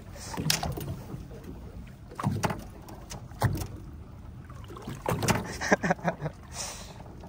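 Water lapping against a small boat's hull, with scattered knocks and clatter on deck, a cluster of them about five seconds in.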